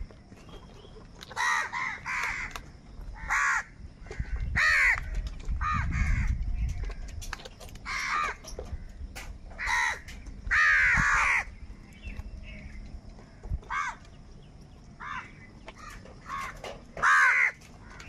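Crows cawing: short, harsh calls one after another at irregular intervals, a dozen or more in all, with some coming in quick pairs or overlapping.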